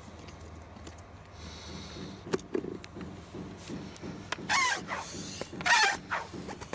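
Hand air pump inflating the inner tube of a small pneumatic wheel, with a run of pump strokes about three a second. Two short squeaks about four and a half and six seconds in come from the tyre rubber, which has shifted on the rim under the rising pressure.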